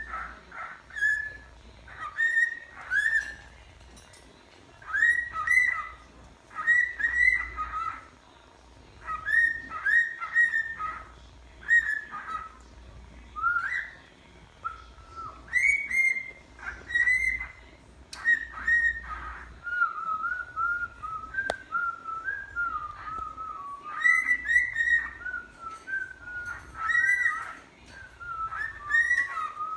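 Male cockatiel whistling its song: short rising and falling whistled phrases, repeated with pauses between them. About two-thirds of the way through it breaks into a run of quicker, wavering warbled notes before going back to the phrases.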